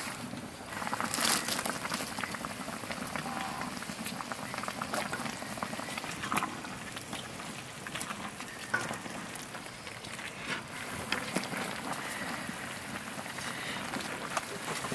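A pot of food boiling, a steady bubbling hiss with scattered sharp crackles and pops.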